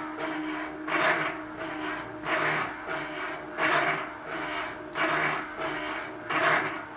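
Stepper-motor power feed driving a Warco GH milling machine table slowly, with a rasping rattle about every second and a half. The builder puts the noise down mainly to the handwheel handles on the end of the leadscrew rattling loose.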